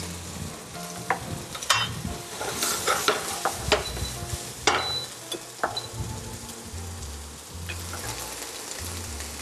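Artichoke strips and onion sizzling in oil in a frying pan as they toast, with occasional clinks and scrapes of utensils against the pans.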